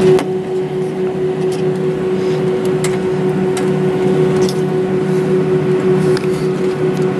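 Airliner cabin noise while taxiing after landing: a steady engine hum with a constant tone over a rushing background, and a few faint clicks and rattles.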